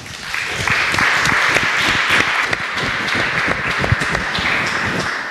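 Audience applauding: dense clapping that swells during the first second and thins out near the end.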